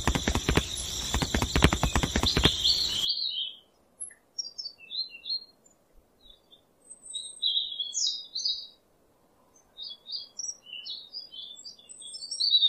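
Small birds chirping in scattered short, high calls, a rural birdsong ambience. Before that, a loud, dense clattering sound cuts off suddenly about three seconds in.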